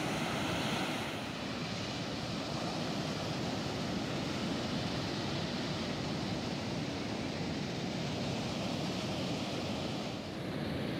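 Heavy surf breaking and white water washing up the beach: a steady rushing noise with no distinct crashes standing out. Its tone changes abruptly about a second in and again near the end.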